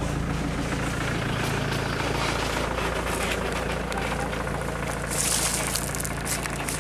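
A vehicle engine idling steadily, with a brief burst of hiss about five seconds in.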